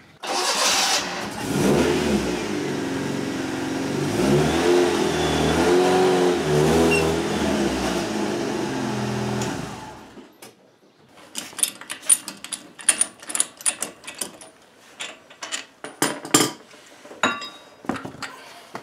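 Fiat X1/9's four-cylinder engine running and revving, its pitch rising and falling, for about ten seconds before cutting off suddenly. Then a string of sharp clicks and metallic knocks as a front wheel is worked off the car.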